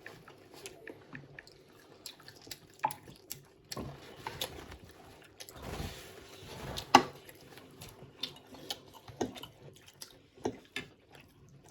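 People eating noodles: scattered small wet clicks and smacks of chewing and slurping, with a longer slurp about six seconds in and a sharper click a second later.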